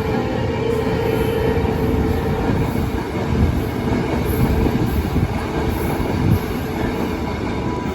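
Passenger express train rolling past close by: a steady rumble of wheels on rail with a high steady whine, and a few sharp clacks as wheels cross rail joints.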